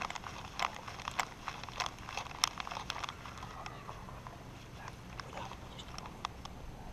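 Irregular, rapid clicks and rustles from a GoPro Hero3+ and its harness riding on a moving chihuahua's back, jostled with each step on the grass.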